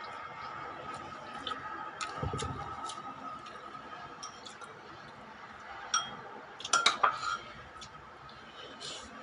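Cutlery clinking against dishes: a few light clicks, then sharp ringing clinks about six and seven seconds in. A faint steady hum runs underneath.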